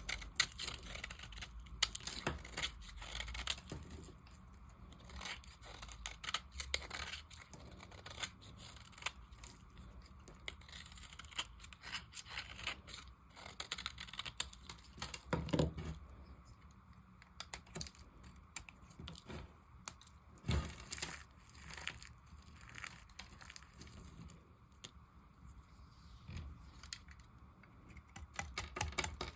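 A blade cutting and carving a bar of dry soap: a run of irregular crisp crackles and scrapes, with two louder knocks past the middle.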